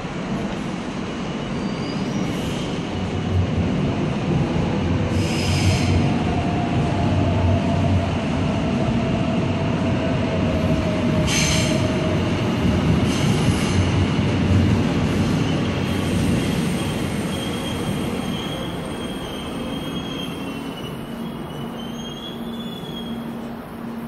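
Seoul Subway Line 4 train moving past behind platform screen doors: a low rail rumble that builds over the first few seconds and fades in the second half, with thin wheel squeal and three short, sharp metallic bursts.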